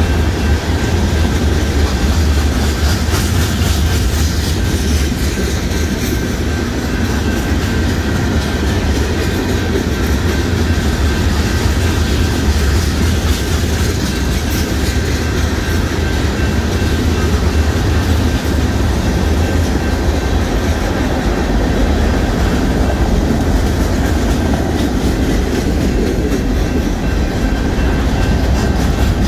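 Union Pacific mixed freight train's cars rolling past at close range: a steady heavy low rumble with wheels clicking over the rail joints. A faint thin high whine runs under it.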